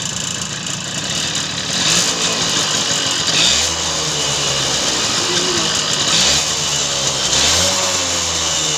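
TVS XL Heavy Duty moped engine running and being revved up about four times, with excessive engine and clutch noise. The mechanic puts it down to a worn clutch bell and clutch-shoe liner, which let the engine race before the clutch engages.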